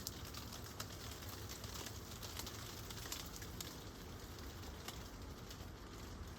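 Steady rain falling, a continuous hiss with many individual drops ticking sharply on a nearby surface.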